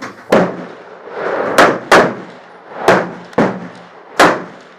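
Rifle shots on a shooting range firing line: six sharp, loud reports at irregular intervals, each with a short echo, as several shooters fire.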